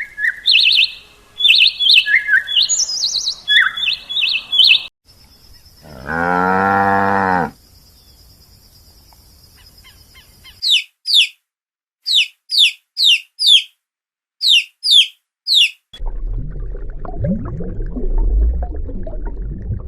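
A run of separate animal calls: varied bird chirps for the first five seconds, then one long moo from a cow, then about ten quick high falling chirps. A low rumbling noise fills the last few seconds.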